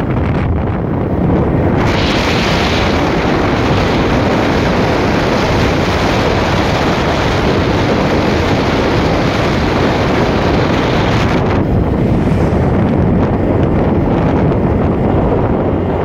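Heavy wind buffeting a phone's microphone while moving along a road: a loud, steady rush of noise that turns brighter and hissier about two seconds in and eases back near eleven seconds.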